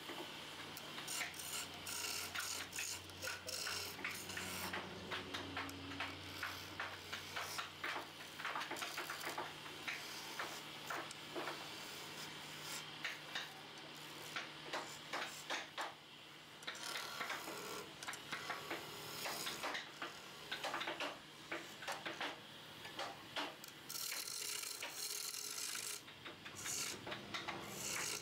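Wood lathe turning a wooden chair leg while a chisel cuts into it: rapid scraping and rasping with many sharp clicks over a steady motor hum.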